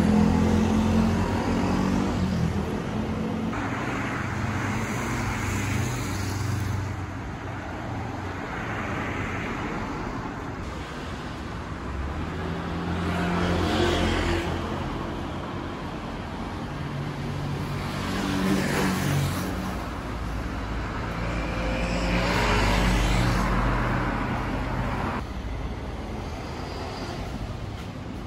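Street traffic: engines running and several cars passing on the road, each swelling and fading.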